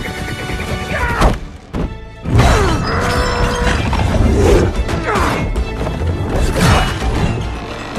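Film action soundtrack: tense orchestral music with crash and impact sound effects. A sharp hit about a second in is followed by a brief quieter gap, then the music comes back loud with several more sudden hits.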